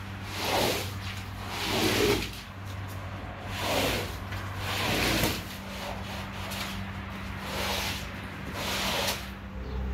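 A rubber floor squeegee pushed in repeated strokes across a soaked rug, squeezing dirty water out of the pile: about six wet scraping strokes, one every second or so.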